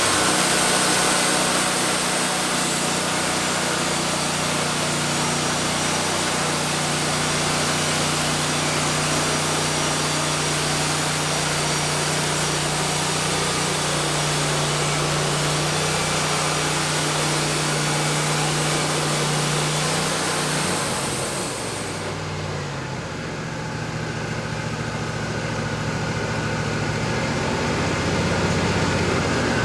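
Wood-Mizer LT40 band sawmill with its engine running under load while the band blade cuts through a cedar log, a steady engine drone under a dense hiss. About two-thirds of the way in the hiss stops as the cut ends, and the engine note sags, then picks back up.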